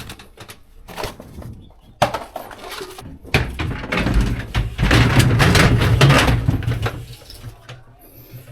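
Cleanup after a floor-drain repair: tools and debris knocking and scraping on a tiled floor, with a sharp knock about two seconds in and a longer stretch of scraping and rustling in the middle.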